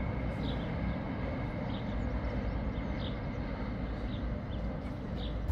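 A steady low rumble of distant vehicles, with a small bird chirping briefly about once a second.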